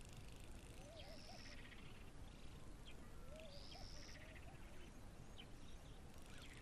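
Faint wildlife ambience of a wetland. A high, buzzy call repeats about every two and a half seconds, with softer, lower warbling calls between.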